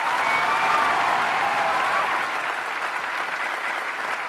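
Large audience applauding, with a few cheering voices over the clapping in the first two seconds; the applause eases off slightly after that.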